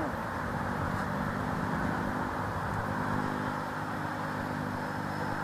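A motor vehicle engine running steadily with a low, even hum over a constant hiss of road traffic.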